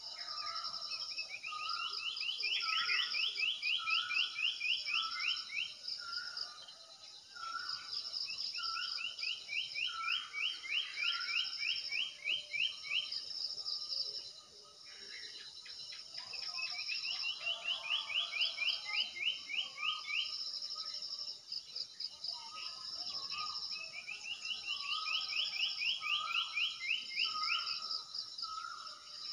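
Birds singing: one bird repeats a fast rising trill a few seconds long, again and again, over shorter repeated calls from other birds and a steady high chirring of insects.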